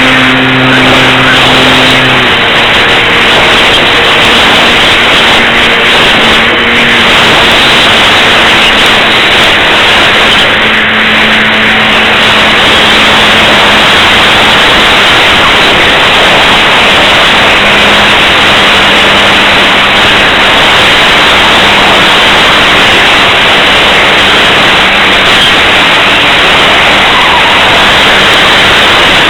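Loud, steady rushing noise of wind buffeting the microphone. A faint steady drone sits under it, likely the electric motor and propeller of an Apprentice RC trainer plane.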